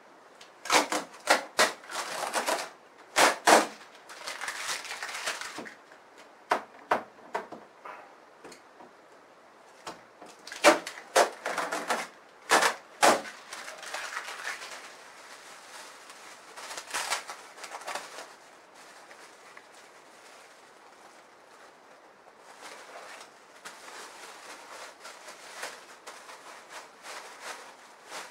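Unpacking noises: packing tape and plastic wrapping pulled from a new portable air conditioner, heard as two clusters of sharp snaps and crackles, with softer rustling of a plastic bag between them and towards the end.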